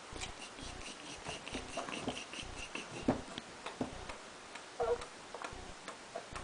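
Rapid wet smacking and chewing clicks of mouth noises while eating, about four to five a second at first, with a short squeaky vocal noise about five seconds in.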